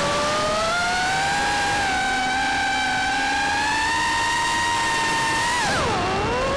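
Racing quadcopter's motors and propellers whining, heard from the onboard camera, the pitch drifting up and down with the throttle, then dropping sharply and climbing back near the end.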